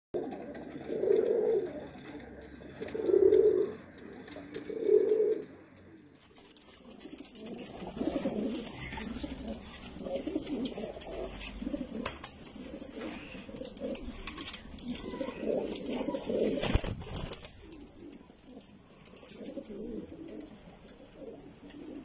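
Iranian domestic pigeons cooing. Three loud coos come about two seconds apart, then several birds coo over one another. A single sharp knock sounds about three-quarters of the way through.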